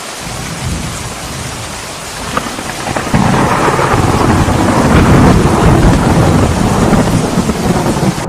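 Steady rain, then about three seconds in a loud, deep rumble of thunder comes in suddenly and continues over the rain.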